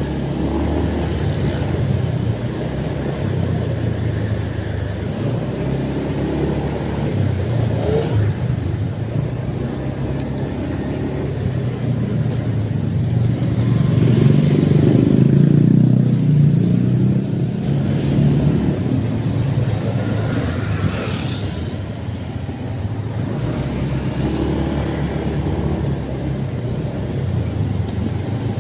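A motor vehicle's engine running steadily with road noise, swelling louder for a few seconds around the middle.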